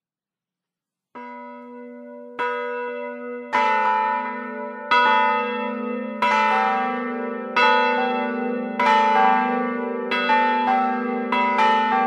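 Church bells of several pitches ringing, starting about a second in, struck one after another a little over a second apart and coming faster near the end. Each stroke rings on under the next.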